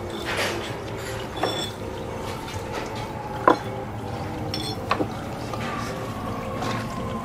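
A few sharp knocks, the loudest about three and a half seconds in and another near five seconds, as a brick is handled and set on the netted rim of a glass aquarium. A steady low hum runs underneath, and a faint falling whine comes in near the end.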